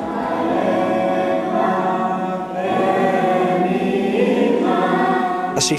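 Choir singing long held notes, with a new phrase starting about two and a half seconds in.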